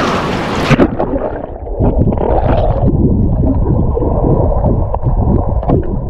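Sea surf and splashing. About a second in, the sound abruptly turns muffled as the camera goes under the sea water, and the rest is dense underwater sloshing and gurgling.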